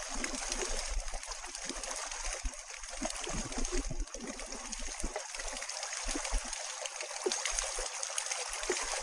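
Paddle wheels of a pedal-powered amphibious recumbent churning through lake water: makeshift flat paddles on bicycle wheels slapping and splashing in a steady rush of spray.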